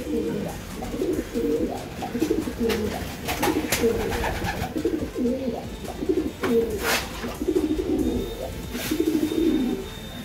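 Several racing pigeons cooing over and over in a small loft, their low rolling coos overlapping, with a few sharp clicks among them.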